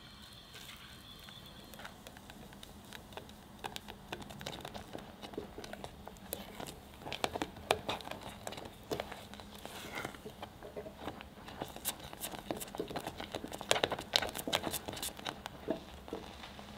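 Silicone spatula stirring thickening custard cream in a saucepan over low heat: soft scraping with a stream of wet, sticky clicks and pops from the thick cream. The clicks grow denser and louder after the first few seconds, with the busiest stretches midway and near the end.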